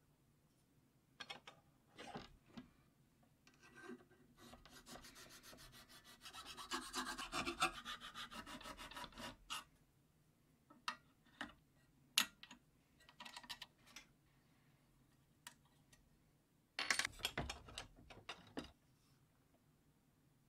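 Hand filing in the blade slot of a homemade spokeshave's steel-and-sapele body. A few scattered scrapes and knocks lead into a run of quick, even file strokes lasting about five seconds. Then come a few single knocks and a second short burst of strokes near the end.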